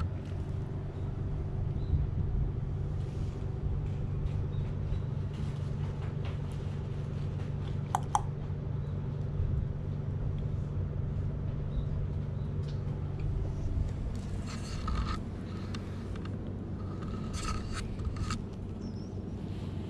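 A steady low mechanical hum, like an engine or machine running, stops about two-thirds of the way through. A single short, sharp click comes about 8 seconds in.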